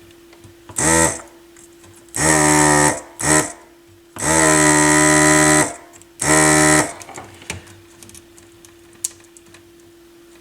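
Electric desoldering gun's vacuum pump buzzing in five bursts, short and long, as the trigger is pulled to suck solder from the clipped legs of an old battery on a circuit board; the longest burst lasts about a second and a half.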